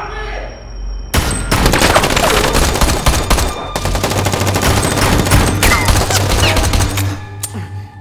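A long burst of rapid gunfire from several automatic weapons. It starts about a second in, pauses briefly midway, and stops about a second before the end.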